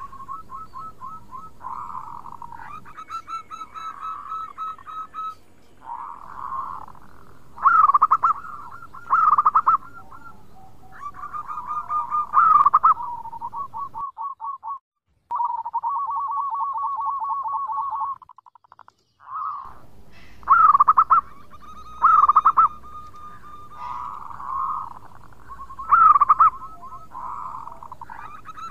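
Zebra dove (perkutut) song: repeated cooing phrases of quick staccato notes at a steady middle pitch, broken by about six louder, higher notes. There are two short breaks in the middle.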